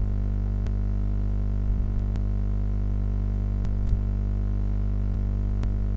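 Steady electrical mains hum, a low buzz with many overtones, with a few faint clicks from a computer mouse.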